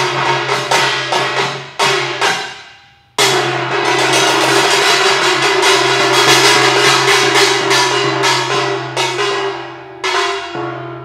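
Several hand-held bronze gongs struck with mallets in a fast, dense rhythm, their tones ringing on under the strokes. A brief lull comes about three seconds in, then a long run of rapid strokes that thins to a few ringing hits near the end.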